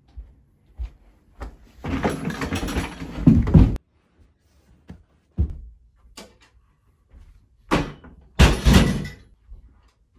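Knocks and thuds of a light wooden chair being handled and set down, with a scrape about eight and a half seconds in. Earlier, about two seconds in, comes a louder two-second stretch of scraping or rustling noise that cuts off abruptly.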